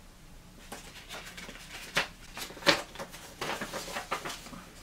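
Paper instruction leaflet being unfolded and handled: a string of light rustles and crisp crackles, the sharpest about two seconds in and again a little later.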